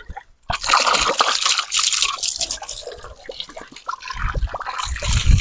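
Water running from a hose and splashing over a whole raw chicken held in the hands as it is rinsed, an uneven trickling and splattering that starts about half a second in. A low rumble comes in near the end.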